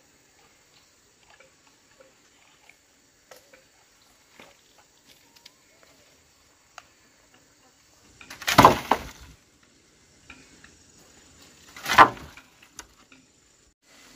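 Two loud impacts about three seconds apart, the first a quick double knock, amid faint scattered clicks and taps and a faint steady high tone.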